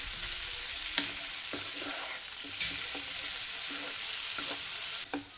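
Beef kondattam with cashews sizzling as it dry-roasts in a pan, stirred with light scrapes every half second or so. The sizzle drops sharply just before the end.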